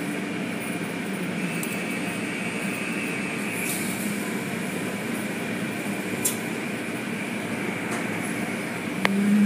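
Automatic car wash machinery, heard from inside the car's cabin: a steady mechanical hum and rush. The hum grows louder near the end.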